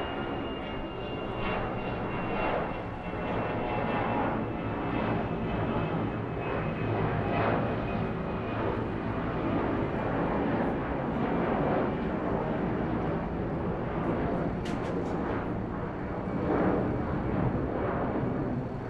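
Airplane engine running steadily, swelling and easing slightly, with a faint high whine slowly falling in pitch over the first few seconds.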